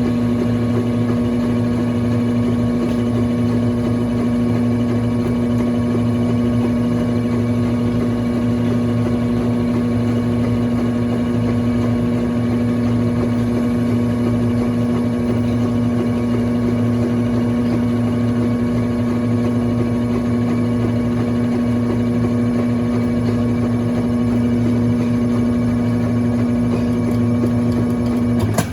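Brastemp Clean 5 kg washing machine running with a steady, loud motor hum that cuts off suddenly near the end.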